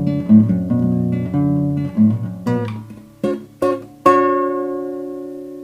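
Acoustic guitar playing the closing bars: a run of picked notes, two short single plucks, then a final chord about four seconds in that rings out and slowly fades.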